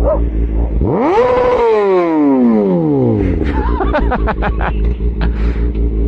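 An engine revs up sharply about a second in and winds slowly back down, then is blipped several times in quick succession about four seconds in, over a steady low rumble.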